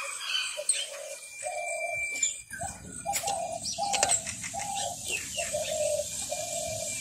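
A dove cooing in a run of short, low notes, a little over one a second, over a faint sizzle of oil heating in an aluminium wok. A couple of light clicks fall in the middle as cinnamon sticks are dropped into the oil.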